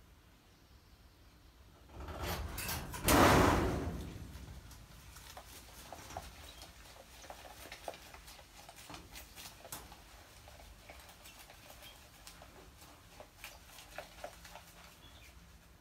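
A rat struggling in a glass tank of water under a layer of polystyrene foam beads: a burst of splashing and rustling about two seconds in, loudest a second later, then fading into faint scattered clicks and ticks.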